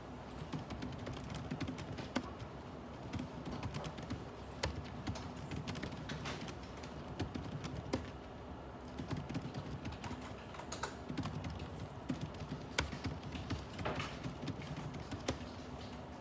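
Computer keyboard typing in irregular bursts of keystrokes, over a steady low hum.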